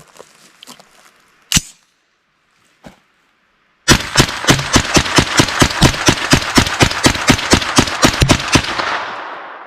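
9mm AR-15 carbine with a 16-inch stainless barrel firing: a single shot about a second and a half in, then a fast string of about twenty shots at roughly four to five a second, trailing off in a long echo.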